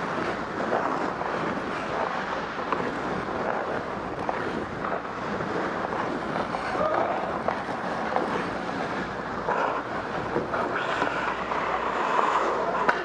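Wind rushing over the microphone of a camera worn by a skater gliding down the ice, with skate blades scraping the ice beneath it as a steady noise.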